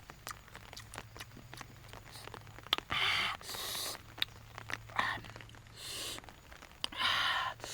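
Short crunching and rustling bursts with scattered small clicks, the sounds of food being handled and eaten, over a low steady hum.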